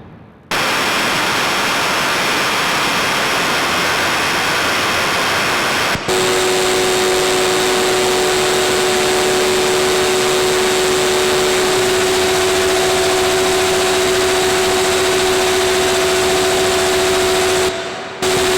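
Electronic noise synthesizer jam: a dense wall of harsh static comes in sharply, and after a short break a steady drone of held tones runs under the noise, one tone stepping up in pitch partway through. Near the end the sound cuts out and stutters on and off.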